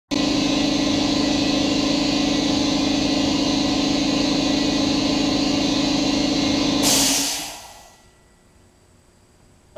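Hot-air plastic welder blowing compressed air through its heated nozzle: a steady loud rush of air with a low hum under it. About seven seconds in it swells briefly, then dies away within a second.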